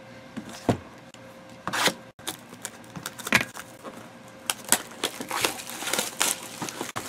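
A Panini Prizm trading-card box being handled and opened and a foil-wrapped card pack taken out: a series of crinkles, rustles and light taps, sparse at first and busier in the second half.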